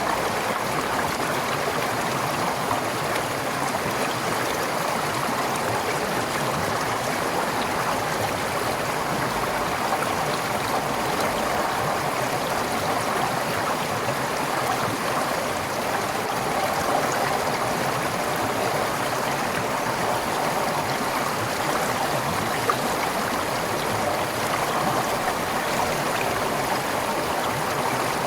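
Forest stream flowing steadily over rocks, a continuous rushing and gurgling of water.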